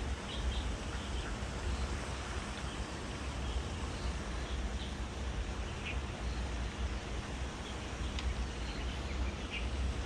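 Steady outdoor background hiss with wind rumbling on the microphone, and a few faint short bird chirps now and then.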